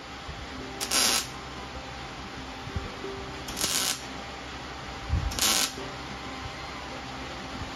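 MIG welder laying plug welds through the holes of a new sheet-steel fender apron panel: three short bursts of crackling arc, each about half a second, spaced two to three seconds apart.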